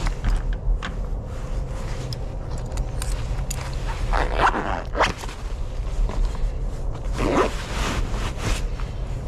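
A dog barking, two main bursts about three seconds apart, over a steady low rumble, with a few short light clicks in between.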